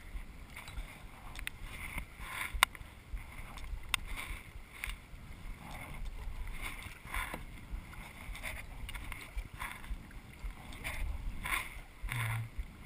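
Kayak paddles dipping and splashing in the water, a stroke about every second, with a few sharp clicks among them.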